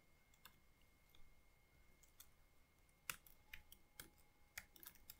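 Faint clicks of a computer keyboard being typed on: a few single keystrokes, then a quicker run of taps from about three seconds in.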